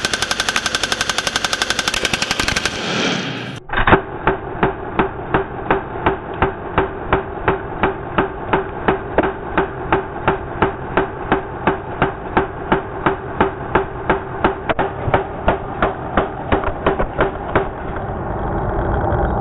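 M249 SAW belt-fed machine gun firing a long, rapid fully automatic burst. After an abrupt cut a few seconds in, the same fire plays back slowed down: deeper, drawn-out shots at about three a second, stopping shortly before the end into a low rumble.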